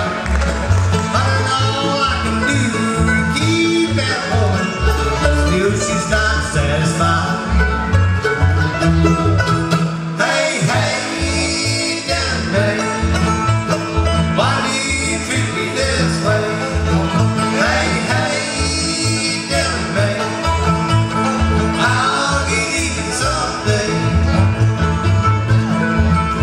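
A bluegrass band playing live: banjo, mandolin and acoustic guitar picking over an upright bass that plucks a steady beat.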